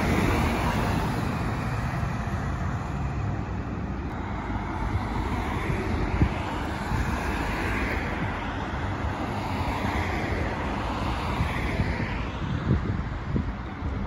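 Road traffic: cars passing one after another, their tyre noise swelling and fading, with an articulated bus's engine pulling away over the first few seconds. Wind buffets the microphone.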